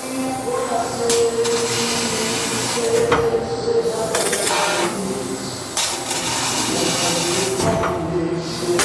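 CNC router running a job: stepper-motor whine that holds a pitch and then jumps to another as the axes change speed, with several short bursts of cutting noise.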